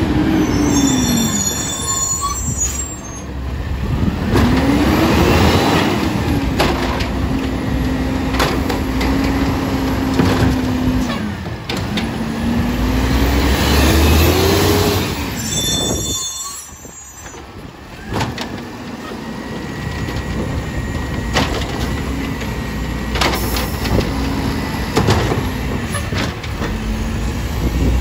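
Automated side-loader garbage truck at work: its diesel engine revs up and holds high while the hydraulic side arm works, then drops back, twice over, with scattered clanks and knocks from the arm and bins.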